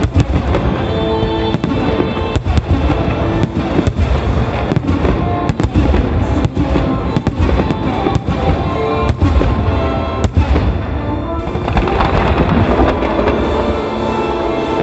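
Aerial firework shells bursting in quick succession, many sharp booms over recorded music played with the show. Near the end the separate booms give way to a denser, continuous crackle.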